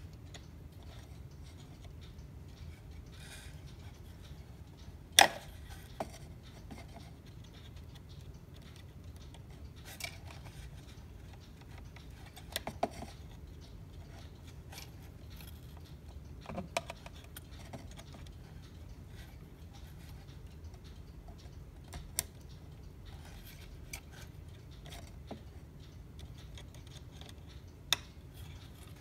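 A hand tool clicking and scraping against a cuckoo clock's drive chain and brass movement while working a tight chain link loose: scattered sharp metal clicks, the loudest about five seconds in.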